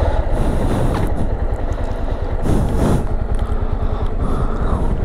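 Motorcycle engine running at low speed, a steady low rumble.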